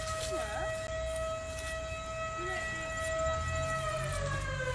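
A siren holding one steady tone, then starting to fall in pitch near the end, over a low rumble.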